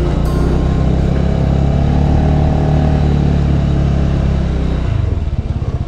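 Motorbike engine running steadily under way, then dropping in revs about five seconds in and settling to a low, pulsing idle as the bike slows.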